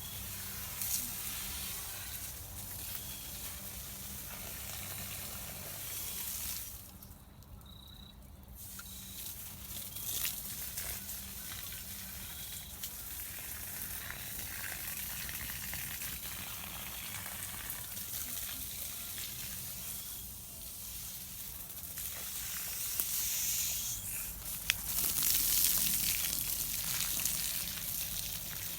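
Food frying in a pan: a steady sizzle with a few sharp pops, dropping away briefly about seven seconds in and growing louder and brighter near the end.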